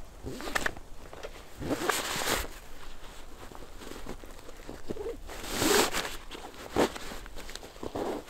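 A fabric gear bag rustling as it is handled and pulled open on a sled, in irregular bursts, with snow crunching under boots. A short sharp click comes about seven seconds in.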